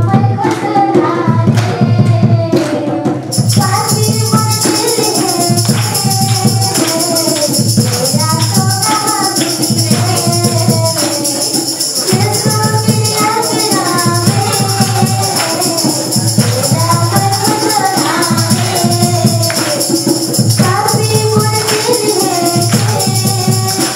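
Song with singing over a steady beat; a jingling percussion layer joins about three seconds in.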